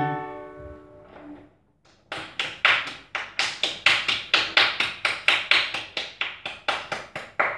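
The last strummed guitar chord of a song rings out and fades. After a brief silence, one person claps steadily, about three claps a second.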